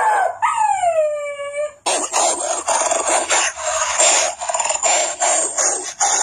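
A voice imitating a wolf's howl, one call falling in pitch, followed by several seconds of rapid, rough snarling and growling noises, as in a mock wolf fight.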